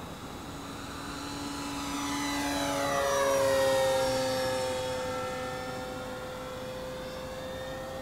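Electric motor and propeller of an OMP Super Decathlon 55-inch balsa RC airplane whining in flight as it makes a pass. It grows louder to a peak about three and a half seconds in, its pitch drops as it goes by, and then it fades a little.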